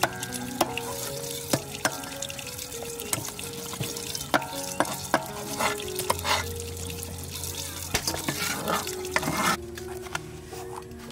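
Water splashing and swishing, with scattered sharp clicks and knocks of handling, over soft background music.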